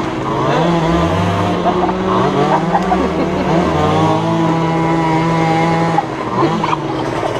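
Several 50cc two-stroke dirt bike engines running at once, their pitches rising and falling over one another as they rev, with one held steady for several seconds; the loudest engine eases off about six seconds in.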